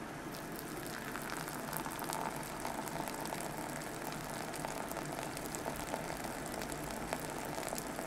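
Thin stream of hot water from a drip kettle pattering onto ground coffee in a paper filter, with a fine crackling fizz as the grounds start to bloom. The pour sound firms up about a second or two in and then runs steadily.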